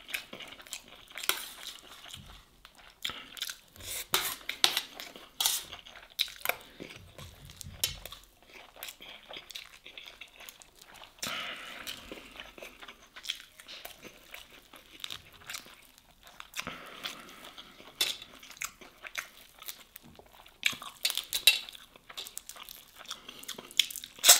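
Close-miked eating: fingers picking apart grilled masgouf fish and rice on a metal serving tray, with a spoon clinking and scraping on the metal and chewing in between. Irregular small clicks and taps, a few of them sharp.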